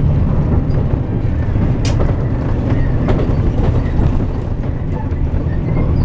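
Steady engine and road rumble heard inside the cabin of a moving bus, with a sharp click about two seconds in.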